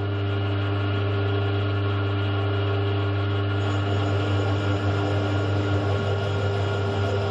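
Milling machine running at low spindle speed, a 10.8 mm drill bit cutting a tapping-size hole in a motorcycle brake caliper. It is a steady motor hum with a couple of higher steady tones and a rough cutting noise over it.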